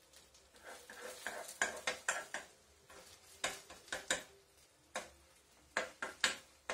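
A metal spoon stirring egg and grated cheese inside a slice of bread in a frying pan, clinking and scraping against the pan in a string of irregular taps.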